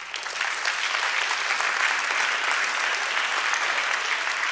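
Audience applauding, the clapping starting suddenly and holding steady.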